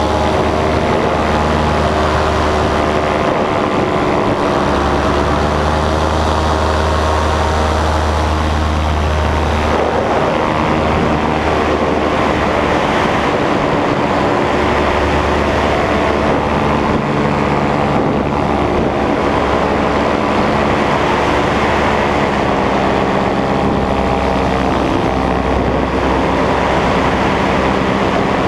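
Nitro 200 paramotor's two-stroke engine and propeller running steadily in flight, its pitch drifting a little with the throttle, with wind noise over the microphone.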